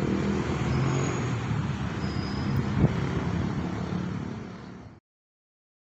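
Steady outdoor ambience with a low hum of road traffic and one short knock about three seconds in; it fades down and cuts to silence about five seconds in.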